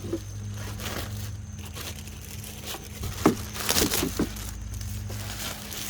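Plastic rustling and clicking as a Ralliart plastic air duct is handled and pressed into place with its plastic clips. There is one sharp click about three seconds in and a short cluster of knocks just after, over the steady drone of a lawn mower.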